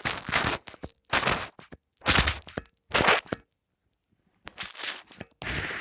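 Foam squeezed and crushed close to the microphone, each squeeze a crackling crunch. About one squeeze a second, then a short pause just after the middle before more, quicker squeezes.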